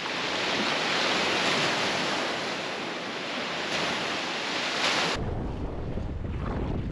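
Ocean surf washing on a beach, a steady hiss that swells and eases. About five seconds in the sound changes abruptly to a low rumble of wind buffeting the microphone.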